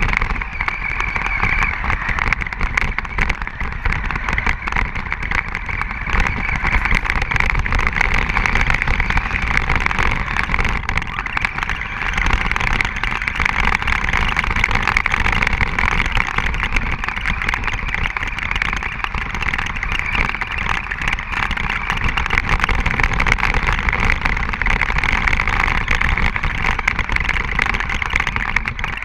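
Radio-controlled car driving across snow: a steady high whine from its motor and drivetrain, over the noise of its tyres churning through the snow, with frequent small knocks as the chassis bounces over the ruts.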